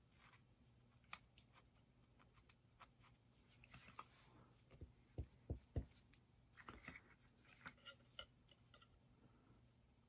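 Faint handling of a small plastic model: a sponge applicator rubbing weathering powder onto the plastic, with scattered small clicks and taps. Three soft low knocks come about five seconds in, the loudest sounds, then a short run of clicks.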